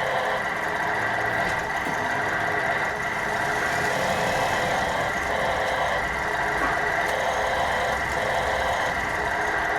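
Radio-controlled model truck running with a steady engine-like drone that holds an even level throughout.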